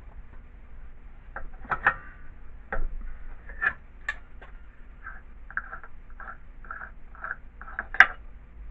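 Hand tools working on an old air compressor's filter housing: scattered metal clicks and knocks, then a run of short, evenly spaced strokes about two a second, and a sharp clink near the end.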